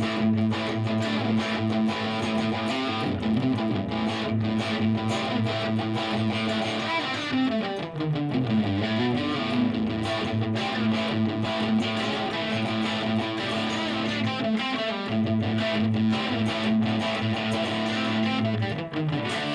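Electric guitar, a 1958 Gibson Les Paul Special with P-90 pickups, played through a slightly higher-gain Marshall JCM800 amp model: overdriven chords strummed continuously. About eight seconds in, the pitch slides down and back up.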